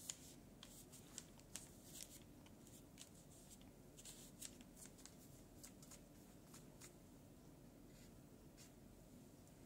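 Faint, irregular soft scratches and taps of a flat paintbrush working watercolor paint onto a small watercolor-paper tag, thinning out toward the end.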